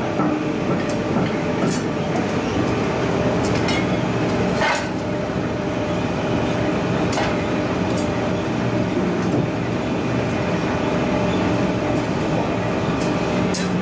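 Steady drone of forge-shop machinery, with a few sharp metal clinks as the red-hot steel forging is handled with tongs.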